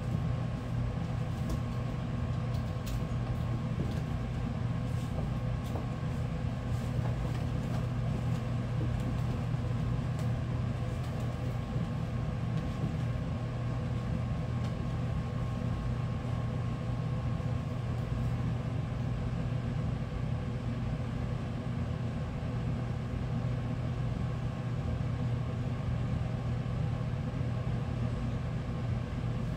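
Steady low mechanical hum with a few faint scattered ticks.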